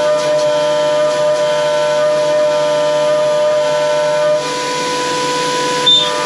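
Optimum OPTImill F 105 CNC vertical mill's spindle and end mill cutting a metal block: a steady whine of several held tones over a hiss. About four seconds in the strongest tone drops away, and a couple of brief high chirps come near the end.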